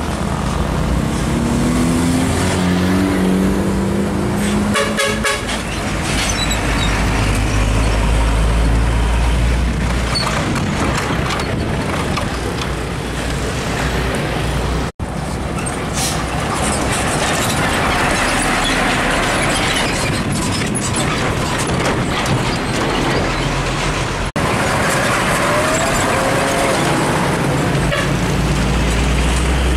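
Heavy diesel cargo trucks driving past one after another, their engines running and pulling up through the revs, with tyre and road noise. About five seconds in and again near the end, short horn or air-brake sounds cut through the engine noise.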